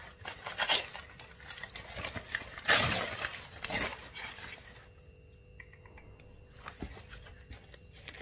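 Rustling and crinkling of vegetable packaging being handled, in irregular bursts, loudest about three seconds in and quieter in the second half.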